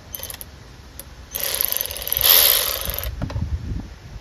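Cordless ratchet whirring for about two seconds as it spins a bolt on a lawnmower's rear drive, after a few short clicks, with a few low knocks of handling near the end.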